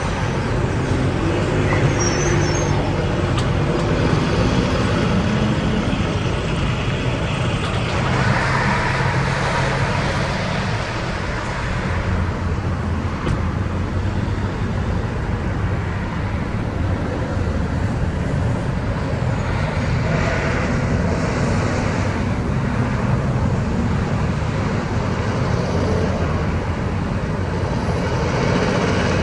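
Road traffic passing: heavy-haul semi trucks with diesel engines running and tyres on the road roll by among cars, the noise rising and falling as each vehicle goes past.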